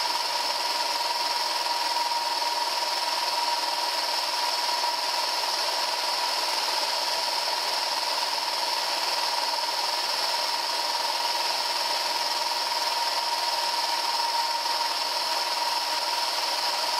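Eight 12 V DC micro motors driving a 3D-printed plastic gearbox, running steadily with a high whine while the gearbox hoists a 78 kg anvil under load.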